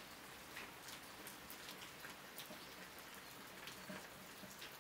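Faint, steady rain, with individual drops ticking now and then.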